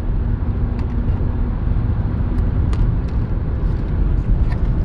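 Steady road and engine noise inside a moving car's cabin: a low rumble with a faint hum in the first second or so, and a few faint clicks.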